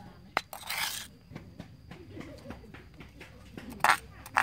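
Stone pestle knocking against a stone mortar with a sharp clack, then a metal spoon scraping the crushed paste around the mortar. Two more sharp knocks come near the end.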